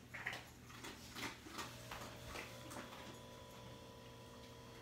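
A large husky-type dog eating small scattered bits of food off a hardwood floor: faint, irregular clicks and crunches, mostly in the first couple of seconds.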